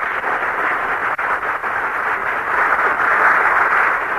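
Studio audience applauding steadily, swelling a little midway, heard through the narrow, muffled sound of an old radio recording.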